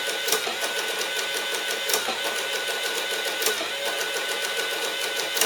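Sharp XE-A107 cash register's built-in printer running steadily as it prints out the programming report that clears the P error, with a louder click about every second and a half.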